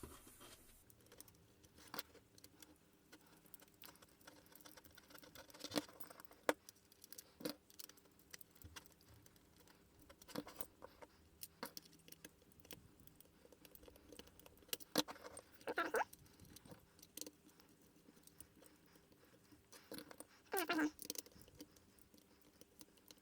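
Screws being driven by hand into the plastic housing of a Kärcher window vac: scattered light clicks and taps, with two brief squeaks partway through and near the end.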